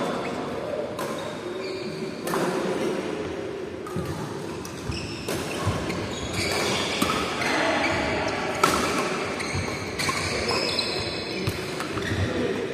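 Badminton rally on an indoor court: sharp racket-on-shuttlecock hits every second or two, with short high squeaks of court shoes on the floor and background voices.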